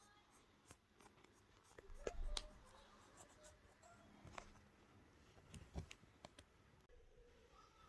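Faint handling sounds: scattered small clicks and light taps, a little louder about two seconds in and again around the middle.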